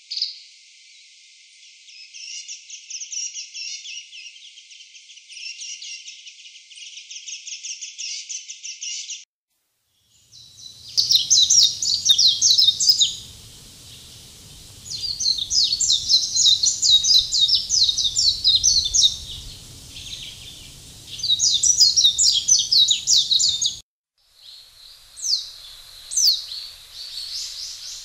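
Songbirds twittering: bursts of rapid, high chirping phrases a second or two long, broken twice by sudden cuts in the sound. Near the end come a few separate, falling whistled notes.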